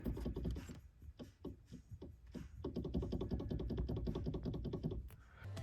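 Rattling clicks from the electric power steering assist motor of a 2009 Scion xB with its motor cover off, scattered at first and then a quicker run from about halfway. The rattle comes from the motor's damper piece, which has gone brittle and fallen apart.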